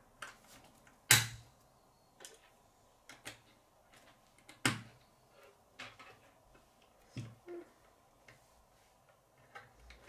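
K'nex plastic rods and connectors clicking as they are snapped together and knocking against a wooden tabletop: scattered sharp clicks, the loudest about a second in and again just before five seconds in.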